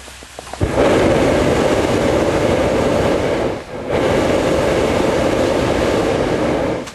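Hot-air airship's propane burner firing in two long blasts: a loud, steady rushing noise that starts sharply about a second in, breaks off briefly just past halfway, then runs again until it cuts off near the end.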